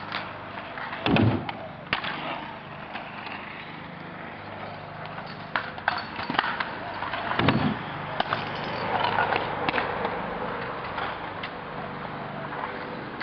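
Stunt scooter wheels rolling on hard ground, with sharp clacks and two heavy thuds about a second in and about seven and a half seconds in, as tricks are landed.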